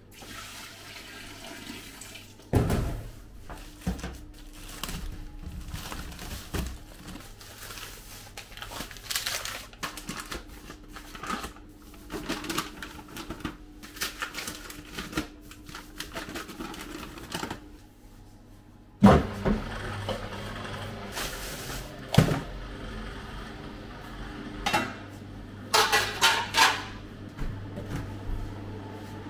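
Kitchen prep work: clattering and knocking of pots, trays and utensils, with spells of running water, over a steady low hum. A loud knock comes a little past halfway, and a quick run of clinks comes near the end.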